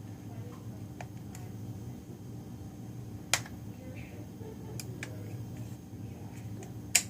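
Sharp plastic clicks and snaps as an OtterBox phone case is pulled apart and handled. The two loudest snaps come about three seconds in and near the end, with fainter clicks between, over a steady low hum.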